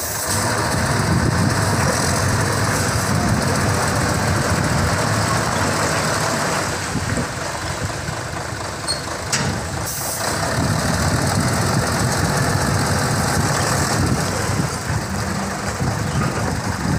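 Mercedes-Benz 2634 tractor unit's diesel engine running at low speed as the truck and semi-trailer manoeuvre slowly, with a brief sharp hiss about nine seconds in.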